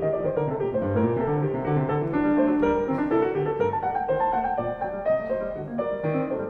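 End-screen background music with a fast run of many short notes.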